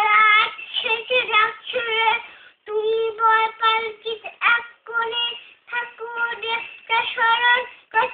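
A two-year-old boy's high voice reciting a Bengali poem from memory, in short phrases with brief pauses between them.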